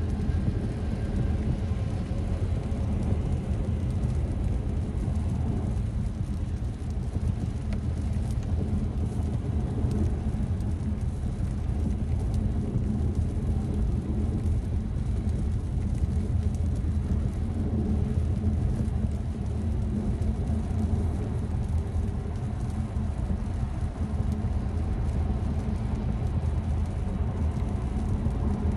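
Steady low rumble of road and tyre noise inside a car cabin at motorway speed on a wet road.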